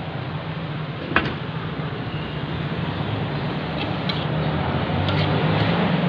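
A metal spatula stirs a stir-fry in a wok and knocks against the pan, with a sharp clink about a second in and lighter clicks later, over a steady rushing background noise.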